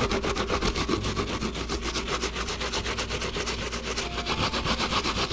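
Half an apple being grated on a metal box grater: a steady run of rasping strokes, about five a second.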